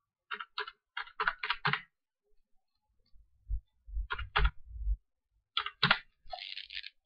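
Computer keyboard being typed on as a registration number is entered: a quick run of about six keystrokes in the first two seconds, then two more pairs of clicks a few seconds apart. A short scraping hiss comes near the end.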